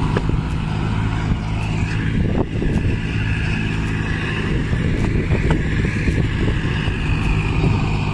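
Diesel engine of a Hydra pick-and-carry crane running steadily while it lifts and carries a rail, a low engine hum with a steady higher whine over it and a few faint clicks.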